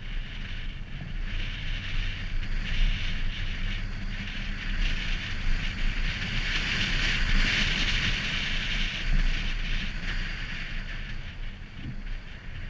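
Car driving slowly on a paved road, heard from a camera mounted outside on the hood: wind buffeting the microphone over a low rumble and steady tyre hiss, a little louder in the middle.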